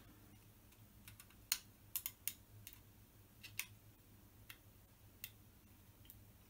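Sparse small clicks and taps of a small plastic part being handled and fitted in the fingers, about a dozen, most of them between one and four seconds in, the loudest about one and a half seconds in.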